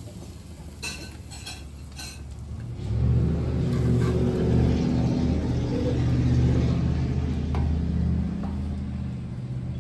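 A few light clicks and scrapes of metal spatulas on the griddle, then from about three seconds in a low, steady engine rumble that swells and slowly eases off.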